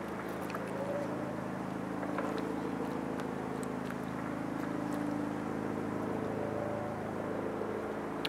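An engine running steadily nearby: an even, low hum of several tones that holds through the whole stretch without revving.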